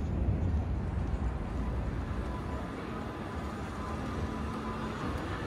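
Steady low rumble of street traffic at a busy city intersection, with a faint steady hum joining it about halfway through.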